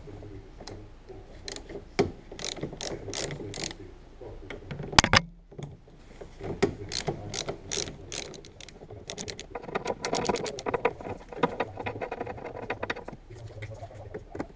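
Hand ratchet clicking in quick runs as fasteners on the diesel fuel filter housing are turned, with a sharp knock about five seconds in.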